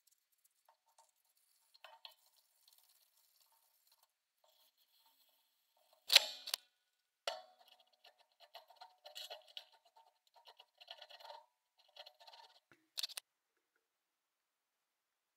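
Quiet handling noises of sandpaper on a wooden hammer handle: scattered light scraping and rustling strokes, with a short sharp knock about six seconds in, another about a second later, and a last one near the end.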